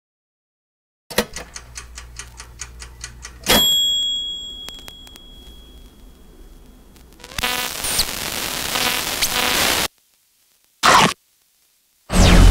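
Intro sound effects: a run of quick ticks at about five a second over a low hum, then a sharp ding whose ringing tone fades out over a few seconds. A stretch of static-like hiss with a buzz in it follows and cuts off suddenly, then two short glitch bursts and a falling sweep lead into the beat.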